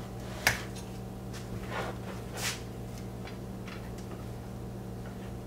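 A 12-inch subwoofer being handled and set down on a car's fibreboard rear deck: a sharp knock about half a second in, then two short scraping rustles, over a steady low hum.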